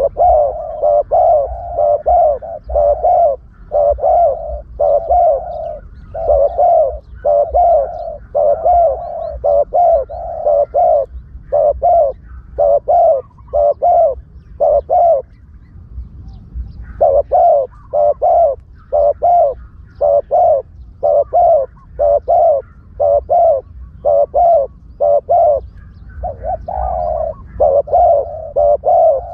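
Spotted dove cooing in long, fast series of short notes, with a brief pause about halfway through: a dove decoy call used to lure wild spotted doves.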